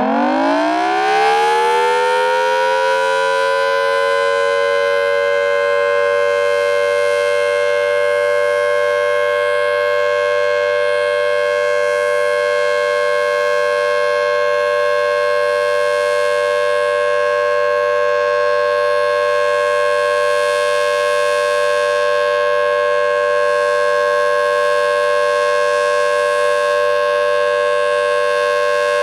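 Federal Signal Thunderbolt 1000T outdoor warning siren winding up, its pitch climbing over the first few seconds, then holding one steady, loud tone for a full alert signal. The rotator is not working, so the horn does not sweep and the loudness stays even instead of rising and falling.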